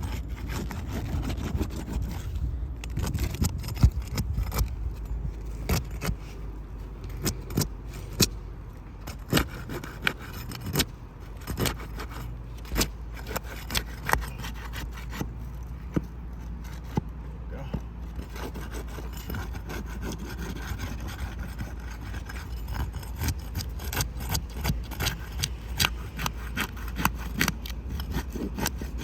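A prying tool scraping and clicking against brittle roof shingles as they are worked loose. It makes many sharp ticks and taps, thickest in the first part, then a more even scraping, over a steady low rumble.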